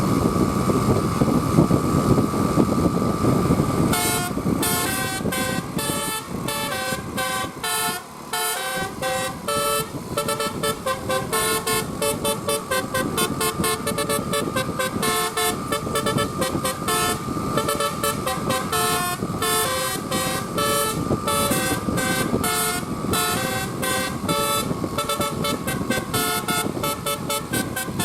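A bus's 'telolet basuri' multi-tone musical air horn playing a fast tune of short, changing notes, starting about four seconds in over the low noise of engines.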